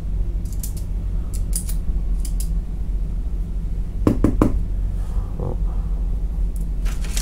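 Light clicks and taps from an aluminium tactical pen and small items being handled on a work table, with a louder clatter of knocks about four seconds in, over a steady low hum.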